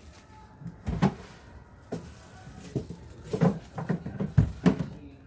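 Several irregular knocks and thumps with light rustling: groceries being handled and put away in a fridge, the loudest knock about four and a half seconds in.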